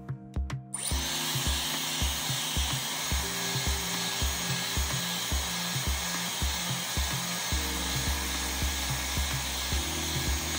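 Hair dryer switching on about a second in and blowing steadily, a rush of air with a faint high whine. It is warming the phone's edge to soften the screen adhesive.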